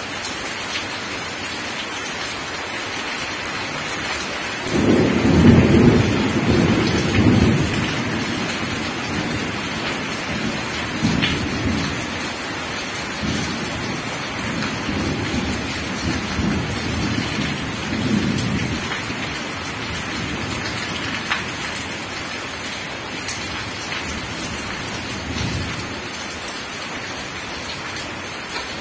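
Heavy rain falling on wet gravel, a steady hiss of drops. About five seconds in a long rumble of thunder begins, loudest at first and rolling on in waves for some fifteen seconds, with one more short rumble near the end.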